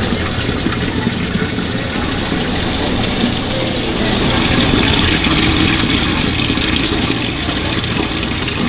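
Steady hum of a live-seafood tank's pump with water rushing into the tank, and faint market voices in the background.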